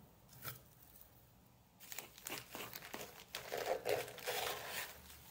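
Hands rummaging through a cardboard box of plastic-bagged plants packed in dry sphagnum moss: crinkling and rustling that starts about two seconds in, after a nearly quiet start with one soft tap.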